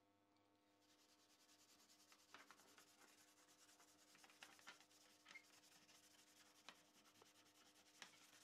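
Faint rubbing or scrubbing strokes on a hard surface, with a few light clicks and taps, over a steady faint electrical hum.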